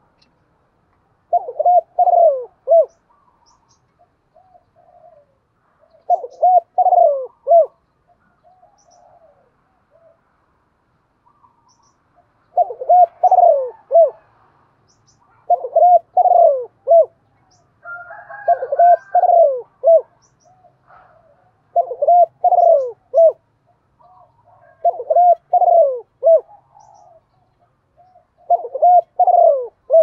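Spotted dove cooing: a repeated phrase of several deep coos about every three seconds, with softer single coos between phrases. A higher-pitched call overlaps one phrase a little past the middle.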